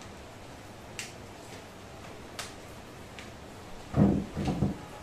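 Rods of a Triopo quick-open softbox clicking as they are pushed out and locked into the metal speedring: two sharp single clicks, then a louder cluster of knocks and handling noise about four seconds in.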